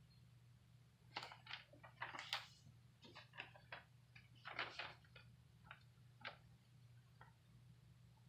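Faint, irregular clicks and short rustles, like small objects being handled, over a steady low hum. They come in two clusters, about a second in and about halfway through, and thin out near the end.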